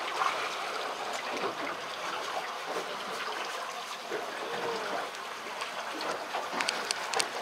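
Water lapping and splashing against the hull of a drifting boat, a steady wash, with a few sharp clicks near the end.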